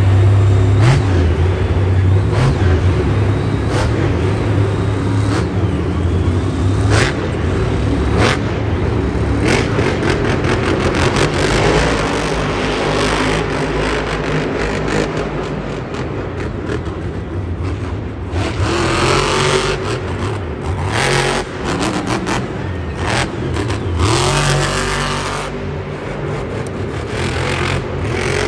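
Monster truck supercharged V8 engines running loud and revving up and down, with sharp bangs and knocks scattered through.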